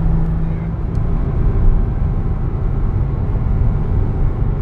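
Porsche 987.1 Cayman S's 3.4-litre flat-six engine running under way with tyre and road noise, a steady low rumble heard from inside the car. A steady note in the engine sound drops away a little under a second in.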